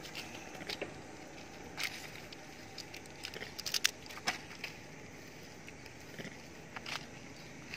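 Scattered light crackles and taps, with a quick cluster of them about three and a half to four seconds in, over a steady low background hiss.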